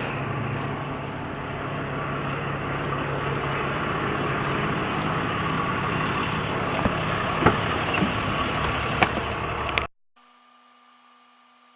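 Tow truck's engine running steadily, with a few sharp clicks and knocks over it. About ten seconds in the sound cuts off suddenly to a faint, steady electrical hum.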